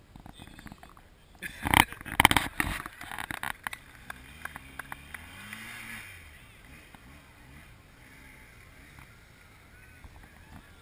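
A BMW GS adventure motorcycle's engine revving up and down as it rides over dirt jumps, the pitch swelling and falling. A loud burst of rough noise comes about two seconds in.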